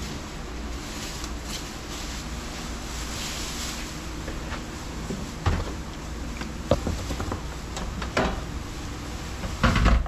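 Thin plastic drop sheeting being pulled down and spread over a workbench, rustling and crinkling steadily. Several knocks come in the second half, the loudest just before the end.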